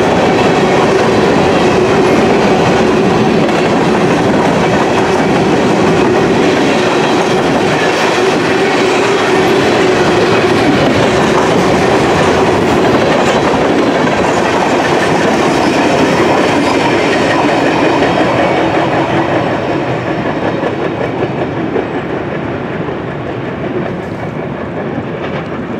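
Covered hopper cars of a freight train rolling past at close range, a steady loud rumble from the wheels on the rails. The rumble dies away over the last several seconds as the end of the train passes and recedes.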